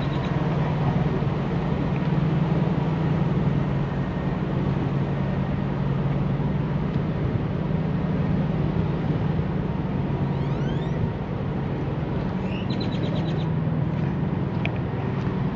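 Steady low hum of idling diesel semi-truck engines, with wind buffeting the microphone. Brief bird chirps come about ten and thirteen seconds in.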